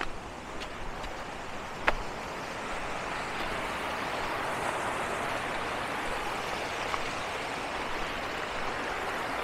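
Small rocky mountain stream rushing and splashing over boulders, a steady rush that grows a little louder after about three seconds. A single sharp click sounds near two seconds in.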